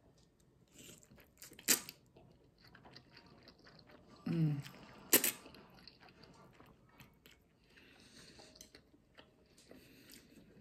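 Close-miked eating of noodles with chopsticks: soft chewing and slurping mouth sounds, with two sharp clicks, the louder one about five seconds in, and a brief low hum falling in pitch just before it.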